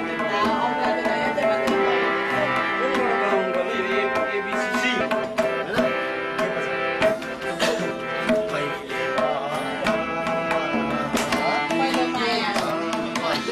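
Tabla played by hand in a quick pattern of sharp strokes over a harmonium's held reedy chords.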